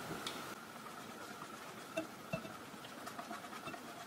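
A cold stick of butter being grated on a stainless steel box grater: faint, soft rasping strokes, with a couple of light taps about two seconds in.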